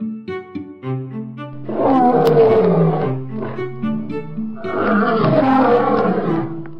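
A lion roaring twice, each roar lasting about a second and a half, over background string music.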